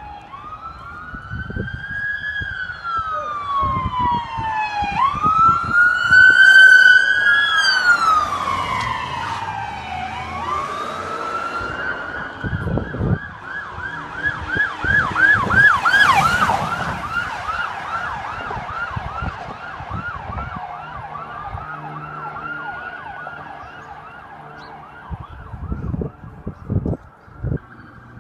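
Sirens of several police cars responding code 3 (emergency lights and sirens), overlapping: slow rising-and-falling wails for the first ten seconds, loudest around six to seven seconds in, then a fast yelp from about ten seconds in, with a sharp loud blast about sixteen seconds in. The sirens fade toward the end, leaving low vehicle rumble.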